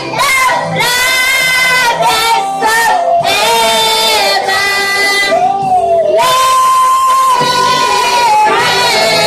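Worship singing over music: a voice sings without words, gliding and holding long notes, with one note held for about two seconds past the middle.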